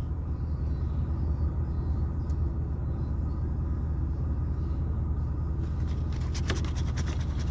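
A steady low engine rumble runs throughout, typical of a car idling. About three-quarters of the way in, a coin starts scraping the coating off a scratch-off lottery ticket in quick strokes.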